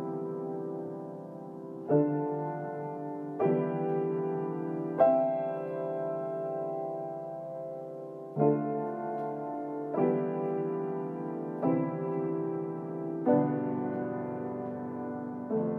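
Slow, gentle piano music: sustained chords struck every second or two, each note ringing on and fading.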